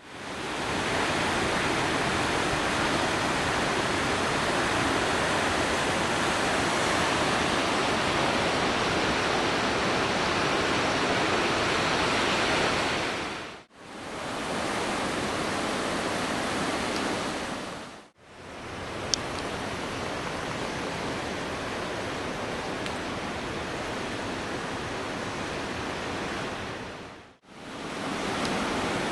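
Rough surf and wind on a seashore during a typhoon: a steady, loud rush of noise. It is broken three times by short dips where the shots change, and there is a sharp click about two-thirds of the way through.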